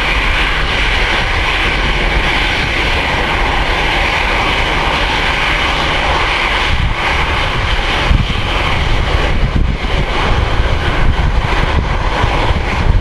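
Boeing 737-500's CFM56-3 turbofan engines at takeoff thrust, a steady loud roar as the jet lifts off and climbs away. From about seven seconds in the roar turns rougher and more uneven.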